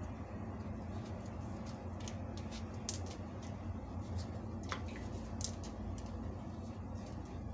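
Scattered light clicks and taps of kitchen handling over a steady low hum, with one brief falling squeak just before the five-second mark.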